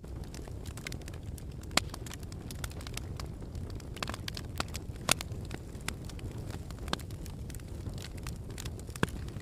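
Wood fire crackling, with sharp pops at irregular intervals over a steady low rumble; the loudest pops come about two seconds in and about five seconds in.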